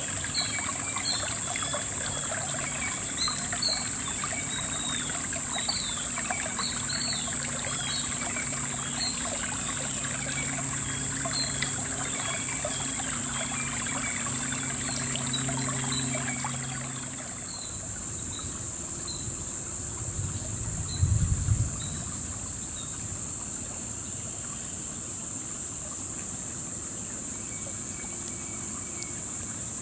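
Shallow river water trickling over stones, under a steady high-pitched insect drone. Short chirping calls come and go through the first half, the trickling drops back about halfway through, and there is a brief low thump about two-thirds of the way in.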